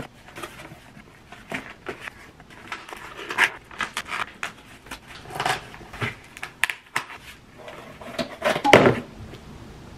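Corrugated cardboard mailer box being folded by hand, with flaps bent along their creases and tabs tucked into slots. It makes an irregular run of scrapes, creaks and soft taps, loudest near the end.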